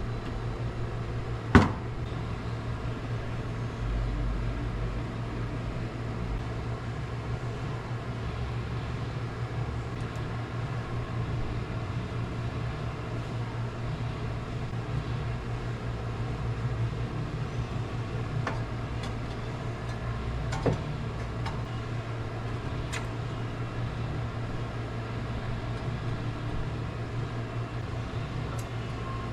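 A steady low mechanical hum with a few sharp clicks, the loudest about a second and a half in.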